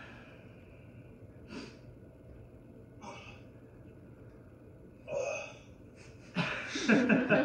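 A man's short, forceful breaths while holding a plank under strain: three brief puffs a second or two apart, then a louder, longer rasping breath near the end.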